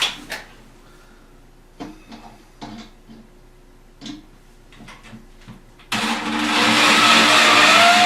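Light clicks and knocks of handle hardware being handled, then about six seconds in a handheld electric drill starts and runs steadily, its motor whine wavering up and down in pitch.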